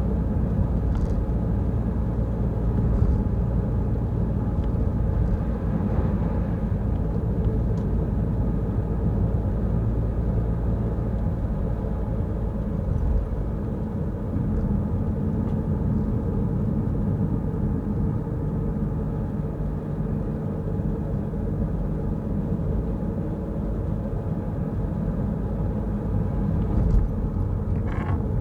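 Steady low rumble of road and engine noise inside a moving Peugeot Rifter, with a couple of short knocks near the end.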